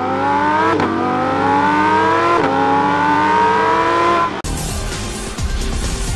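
Car engine accelerating hard, its pitch climbing steadily and dropping briefly twice as it shifts up through the gears. A little over four seconds in it cuts off abruptly and a denser, noisier sound takes over.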